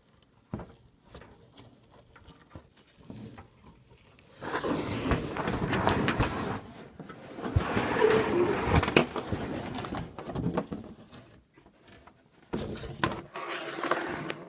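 Cardboard box and packing material being handled as a box fan is unpacked: light clicks and taps, then rustling, scraping and a short squeak, loudest from about four to eleven seconds in.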